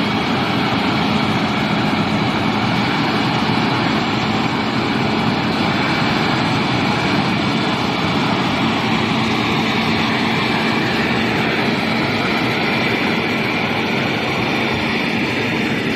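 Smoke-exhausting fire robot running: its engine and large smoke-exhaust fan make a steady, loud drone with a low hum.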